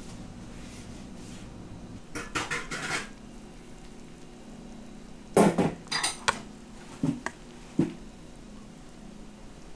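Stainless steel spoon and chopsticks clinking and knocking against a stainless steel bowl of noodle soup. A quick run of light clinks comes about two seconds in, then several sharper knocks between about five and eight seconds in.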